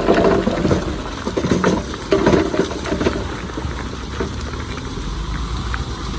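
Heavy earthmoving machinery working: a steady diesel rumble, with dense clattering and knocking over the first three seconds or so that then settles into a steadier run.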